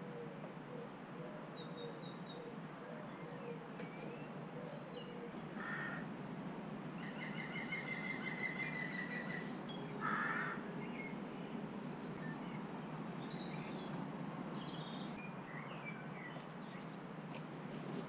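Outdoor garden ambience over a steady low rumble: small birds chirping and trilling, with two short, harsh crow caws about six and ten seconds in.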